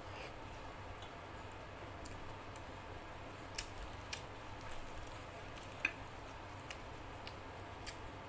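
Close-up eating sounds of a person chewing luchi with chicken curry: scattered sharp mouth clicks and smacks, the loudest a little past the middle, with fingers tearing the soft luchi.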